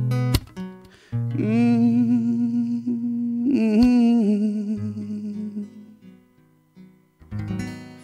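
Acoustic guitar strummed to close a song, with a man's long wordless vocal note, wavering with vibrato, held over the ringing chord. A final strum near the end rings out and fades.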